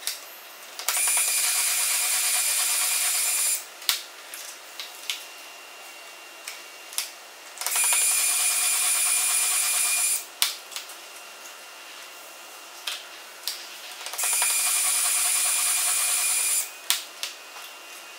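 Milwaukee cordless drill spinning the JessEm Pocket Mill Pro's cutter to mill mortises for loose tenons in wood, in three runs of about two and a half seconds each with a steady high whine. Between the runs come scattered clicks and knocks as the jig and clamps are handled.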